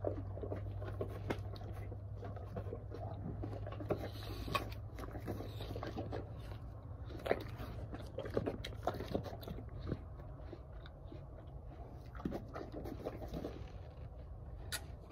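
A horse and a person biting into and chewing apples: irregular wet crunching and crackling, with a low steady hum during the first few seconds.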